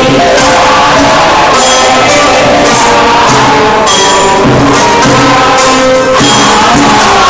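Group Buddhist chanting from chant books, accompanied by instruments, with a sharp percussion strike about once a second over sustained pitched tones.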